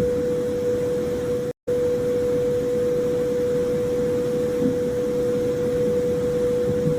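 Synthesized space-ambience drone: one steady mid-pitched tone held over a low rumbling hiss with faint wavering blips beneath it. It cuts to silence for a split second about a second and a half in, then resumes unchanged.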